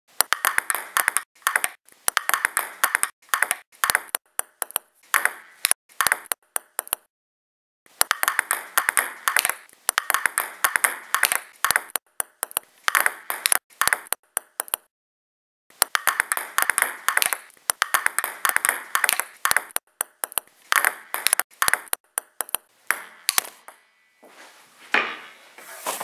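Ping pong balls clicking on a table in quick, rhythmic runs, edited into a percussion pattern, with two short pauses, about seven and fifteen seconds in. Near the end the clicks give way to a softer, noisier rustle, then one sharp knock.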